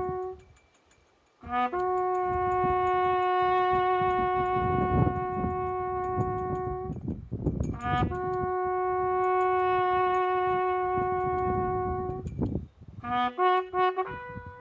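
Music from a solo brass instrument playing slow, long held notes, each led in by a few quick short notes, with a brief pause about a second in.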